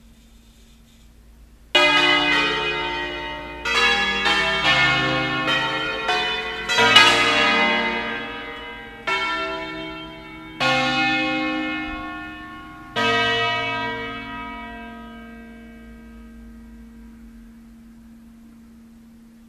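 Church bells from an eight-bell peal in B-flat (cast by Pruneri in 1909, three by Ottolina in 1948) being swung and struck in an irregular sequence of about nine strokes. The strokes slow towards the end, and the last one, about 13 seconds in, rings on and slowly fades away.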